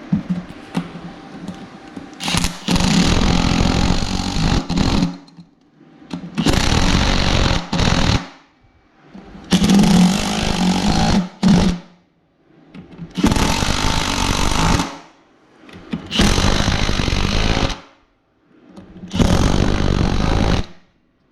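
Power drill running in six bursts of about two seconds each, with short pauses between: drilling 13/64-inch holes through a wheel rim, angled toward the tire bead, for rim screws.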